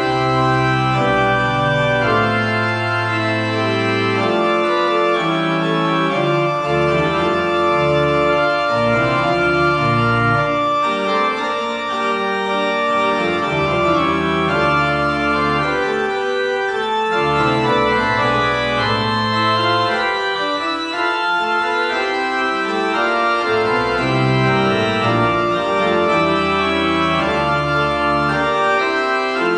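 Church pipe organ playing slow music: sustained full chords that change every second or two over long-held low pedal notes.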